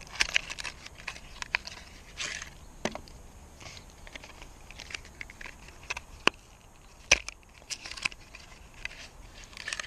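Small cardboard spark plug boxes being opened and handled: scattered rustles and scrapes of card flaps, with several sharp clicks and taps spread through.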